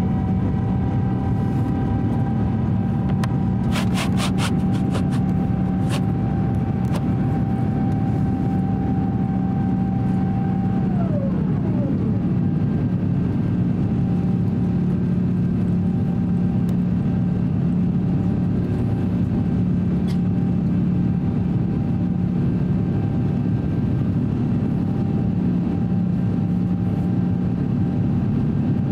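Airbus A350-900 cabin noise during the climb after takeoff: a steady low drone from the Rolls-Royce Trent XWB engines and the airflow. A steady whine over it glides down and fades about eleven seconds in, and a quick run of clicks comes about four to six seconds in.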